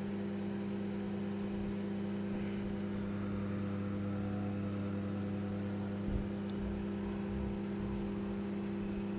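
Microwave oven running, giving a steady electrical hum as it heats, with one faint knock about six seconds in.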